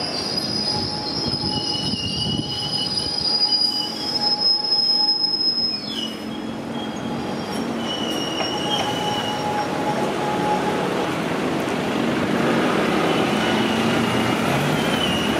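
Freight train wagon wheels rolling slowly round a curve. Their flanges squeal in high whines that come and go over a steady rumble, with one long squeal in the first half. Near the end a London Underground train approaching on the next track adds to the rumble.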